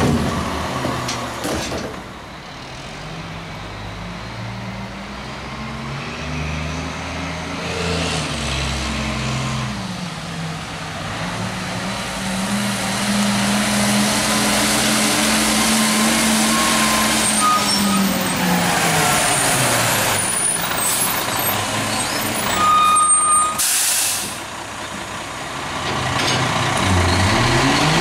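CCC garbage truck engine running, its pitch rising and falling as the truck moves off and drives in. A loud air-brake hiss sounds near the end as it stops, then the engine runs on.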